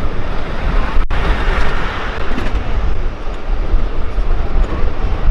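Ride-on miniature railway train running along its narrow track, a steady heavy rumble of the cars' wheels on the rails with wind buffeting the microphone. The sound drops out for an instant about a second in.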